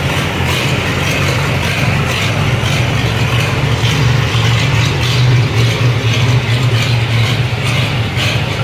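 International Harvester C tractor's four-cylinder engine running steadily, with a light, even mechanical ticking over a low hum.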